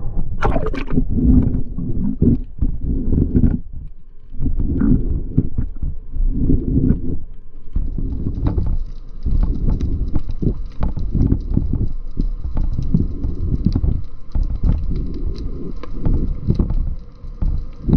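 Water sloshing and buffeting around an underwater camera as it goes from the surface to below it: irregular low thuds and rumbles. A faint fine clicking crackle joins from about eight seconds in.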